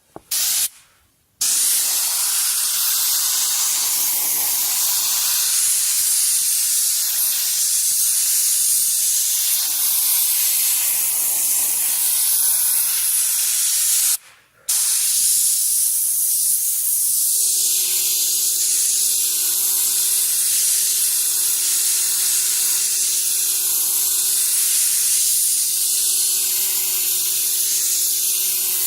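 Paint spray gun hissing steadily as it sprays. It stops briefly twice when the trigger is let go, and a steady low hum joins about 17 seconds in.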